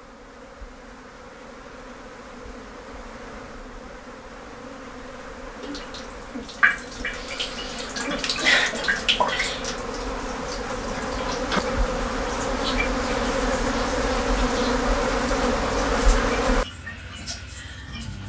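A low buzzing drone with steady held tones that slowly swells louder. About halfway through, hiss and scattered sharp clicks build over it, and everything cuts off abruptly near the end.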